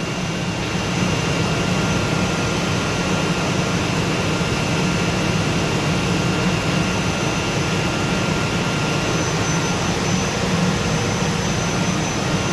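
Industrial wood-cutting machine for plywood running steadily, a constant mechanical hum with faint high steady whines, growing slightly louder about a second in.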